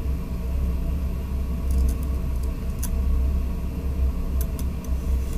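Steady low rumble with a constant hum, and a few faint ticks about two seconds in and again near the end.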